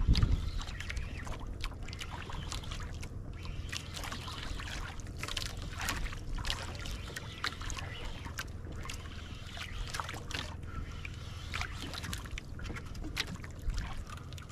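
Small waves lapping and splashing against the hull of an outrigger boat, with scattered light clicks and taps. A gust of wind rumbles on the microphone at the start.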